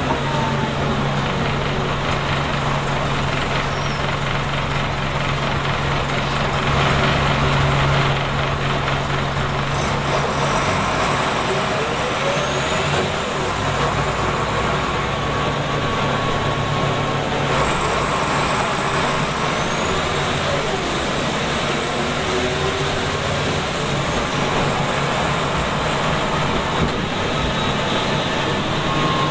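Scania K93 bus's rear-mounted DS9 9-litre six-cylinder turbo diesel running as the bus drives, heard from inside the passenger cabin. A steady engine note holds for about the first ten seconds, then changes, with the pitch rising a few times around the middle.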